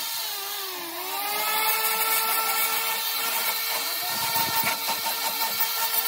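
Corded electric orbital sander running against an aluminium part: a steady motor whine whose pitch sags about a second in as the pad is pressed onto the metal, then climbs back, with a hiss of the pad on the surface.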